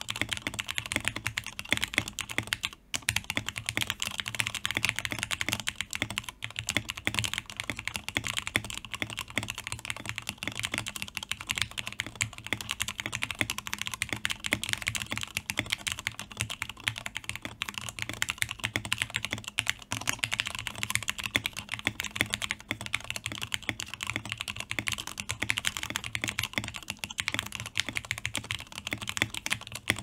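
Continuous fast typing on a Mode SixtyFive mechanical keyboard fitted with Marshmallow keycaps: a dense run of key clacks, many strokes a second. There is a brief pause about three seconds in.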